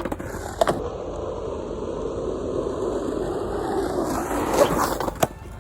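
Skateboard wheels rolling over pavement, a steady rumble that grows louder as the board picks up speed, with a knock about half a second in and a sharp clack near the end.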